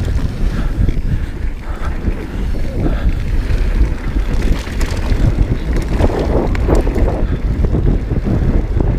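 Wind buffeting the microphone over the rumble and clatter of a mountain bike ridden on a dirt trail, with frequent short knocks from the bike and tyres.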